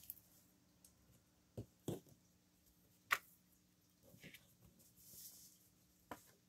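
Cardstock being handled and set down on a craft mat: a few light, separate taps and clicks, the sharpest about three seconds in, and a soft rustle of paper shortly after.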